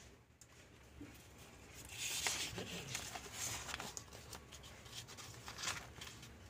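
A sheet of paper rustling and sliding over a cutting mat as it is turned, loudest from about two seconds in to about four, with the light scratches and ticks of a craft-knife blade cutting through the paper.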